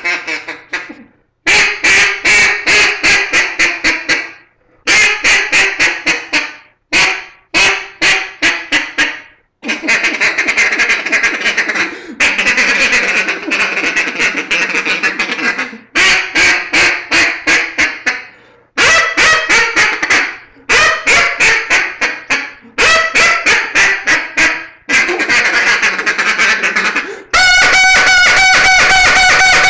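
Real Calls all-acrylic short-barrel double-reed duck call blown in runs of quick quacks, each run lasting a few seconds with brief pauses between. Near the end comes a louder, unbroken run.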